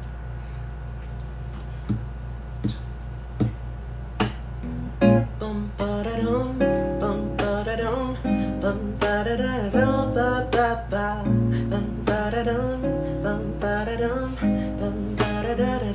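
Acoustic guitar: a few single strums in the first four seconds, then steady strumming from about four seconds in, with a man singing a wordless melody over it. A steady low hum lies underneath.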